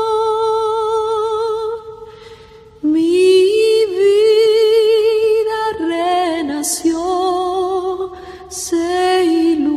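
Woman singing a slow, gentle church song with vibrato. A long held note fades out about two seconds in, then after a short pause she starts a new phrase.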